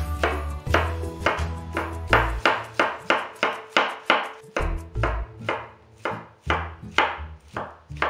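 Kitchen knife chopping maitake mushrooms on a bamboo cutting board, the blade knocking the board in a steady rhythm of about three strokes a second.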